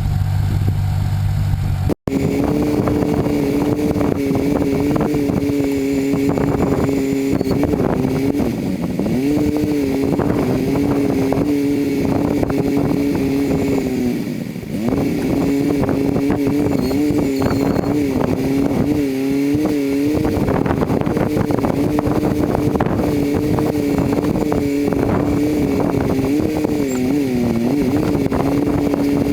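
Homemade backhoe's engine running fast, its pitch sagging briefly every few seconds as the hydraulics take load while digging, with knocks and rattles from the machine. A short lower hum is cut off about two seconds in.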